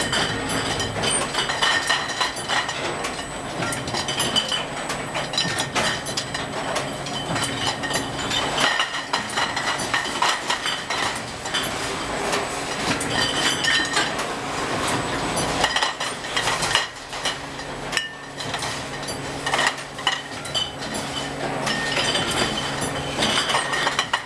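Glass wine bottles clinking and rattling against each other on a bottling-line conveyor, over the steady hum of the bottling machinery. The hum drops out briefly twice.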